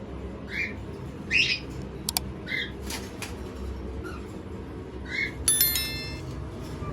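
Cockatiels making about six short chirps and squawks, one at a time, ending in a sharper squeak with a ringing overtone near the end, with a few faint clicks between.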